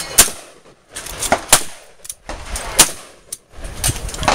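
Semi-automatic AR-15 rifle (.223/5.56) shots: four loud, sharp cracks at uneven intervals, each with a short echo, and fainter shots in between.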